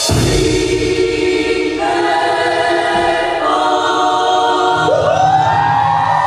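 Dance-show music track with sustained choir-like voices holding chords that shift twice, and a rising sweep about five seconds in.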